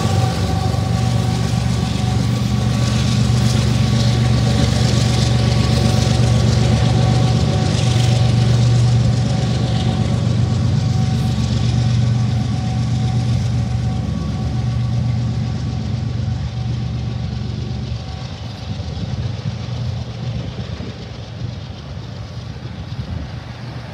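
Diesel engines of Union Pacific freight locomotives giving a steady low drone as they pass and then move away, fading over the last several seconds. Wheel and rail hiss is heard over the drone for roughly the first ten seconds.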